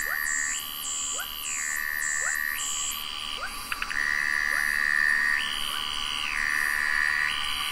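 Electronic synthesizer music: a pure tone switching back and forth between a lower and a higher pitch about once a second over a steady high drone, with short rising chirps in the first half and a brief cluster of clicks near the middle.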